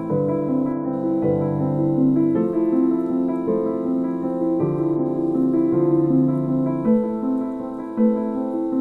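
Background music: a gentle piano melody with bass notes underneath.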